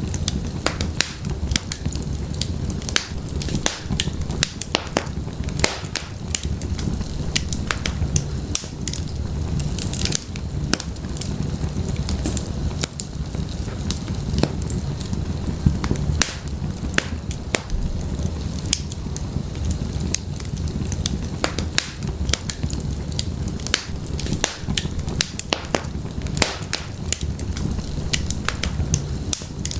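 Wood fire burning in an open fireplace: frequent sharp crackles and pops of burning firewood over a steady low rumble of flame.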